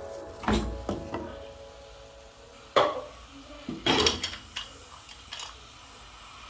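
A cooking utensil knocking and scraping against a metal pot as a stiff mass of ugali is pressed and shaped in it: a few scattered knocks, the loudest about three seconds in, then a quick cluster about four seconds in.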